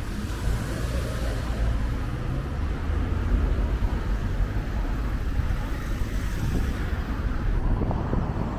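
Strong wind buffeting the microphone in a low, uneven rumble, with road traffic passing alongside.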